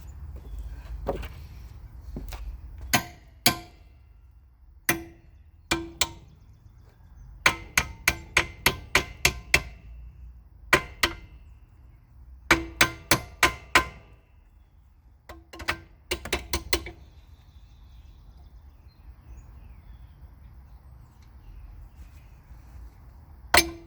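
A hammer striking metal in quick runs of ringing blows, several runs with short pauses between, knocking a welded-on mount off a motorcycle frame.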